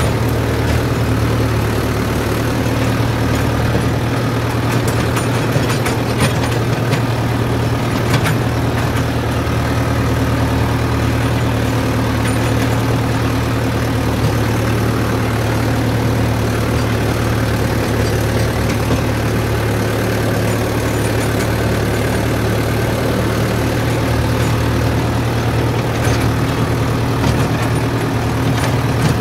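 Mahindra Yuvo 575 DI tractor's four-cylinder diesel engine running steadily, heard close up from the driver's seat as the tractor drives across tilled ground.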